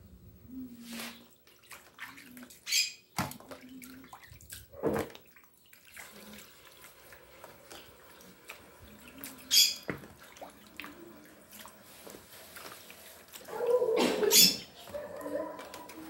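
Wet fish pieces being lifted out of a tray of water and dropped into an aluminium pan: drips and small splashes with scattered knocks against the metal, and a longer, louder burst of handling near the end.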